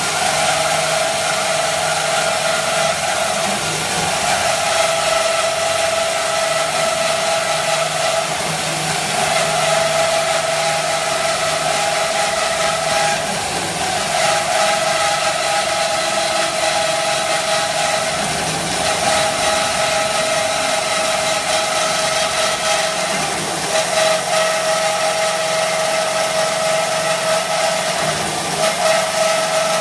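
IMET KS-1202 NC metal-cutting band saw running, a steady mechanical whine over hiss that dips briefly a few times.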